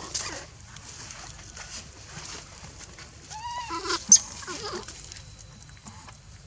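Infant macaque crying in distress while pinned by another young macaque: a quick run of short, arching squeals about three and a half seconds in, peaking in one sharp shriek, with a few weaker cries after it.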